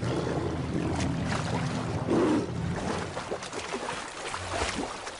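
Heavy water splashing and churning as large animals thrash through a river, in surges of spray about a second apart, easing off near the end.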